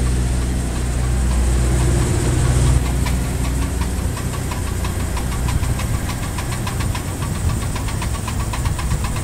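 Damaged CV joint clicking fast and evenly as the jacked-up front wheel is driven round at full steering lock, over the steady hum of the engine. The clicking starts about three seconds in, once the steering reaches full lock.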